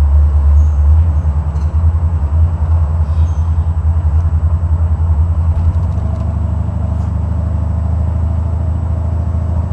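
Buick Regal with a 455 Stage-1 V8 driving along, heard from inside the cabin: a steady low engine and road rumble. A faint steady whine joins in about six seconds in.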